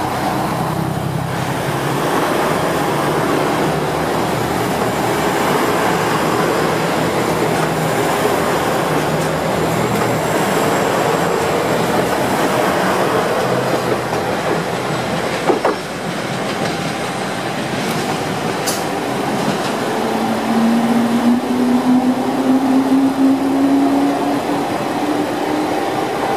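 JR Shikoku 2000-series diesel express trains running through the station, their diesel engines pulling under power with a steady rolling rumble from the wheels on the rails. After a sharp click about halfway through, a diesel engine's note rises steadily for several seconds.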